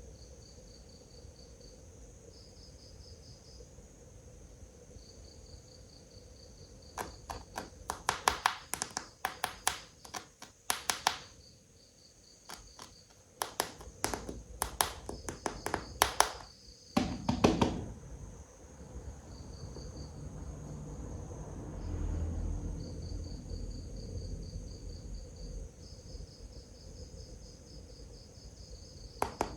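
Crickets chirping in repeated pulsed trains of about a second each, with two spells of sharp clicks and taps from plastic toy figures being handled on a hard surface. In the second half a low steady drone sounds for several seconds.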